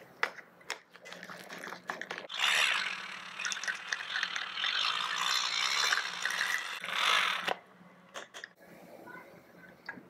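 Small wire whisk beating a wet, lumpy mixture in a small plastic bowl. A few separate clicks come first, then fast rattling and scraping of the wires against the bowl for about five seconds, then it dies down to a few light taps.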